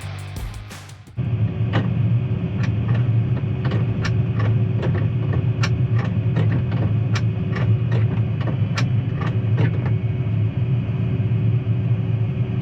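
Combine harvester running steadily while shelling corn, with a strong low hum and a sharp tick repeating about two to three times a second. Tail of background music fades out just before the machine sound comes in.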